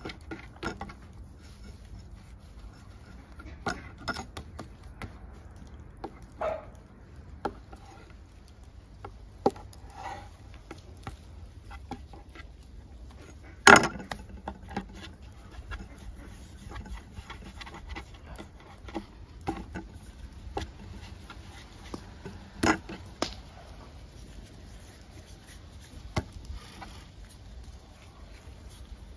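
Scattered light knocks and clicks of things being handled, with one sharp, loud knock about halfway through, over a steady low rumble.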